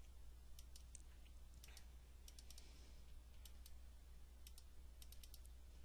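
Faint computer mouse clicks in small irregular clusters as values are keyed into an on-screen TI-83 Plus calculator emulator, over a low steady hum.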